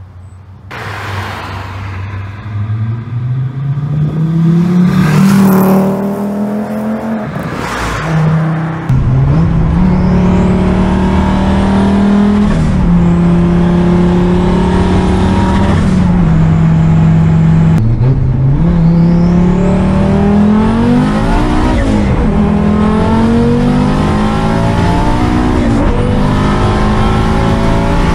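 Five-cylinder cars at full throttle. For the first eight seconds or so, a car accelerates past at the roadside, its note rising and then falling away. After that, an Audi RS2's turbocharged 2.2-litre inline-five is heard from inside the cabin, pulling hard at high revs, its note dropping back sharply several times and climbing again.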